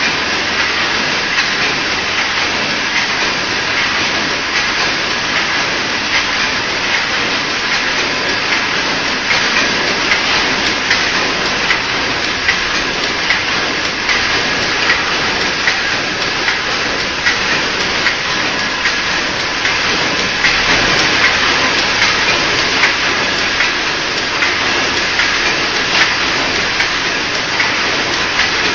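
Hexagonal wire netting machine running, a steady metallic clatter with regular sharp clacks as its pinions twist the wires into double-twist mesh.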